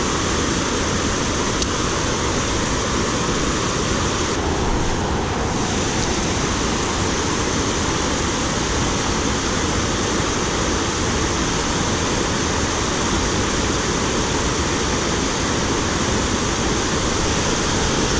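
Steady rush of flowing creek water, an even hiss without a break.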